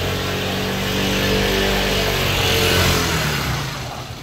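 A motor vehicle driving past close by: a steady engine hum with tyre noise that builds to a peak about three seconds in, then fades away.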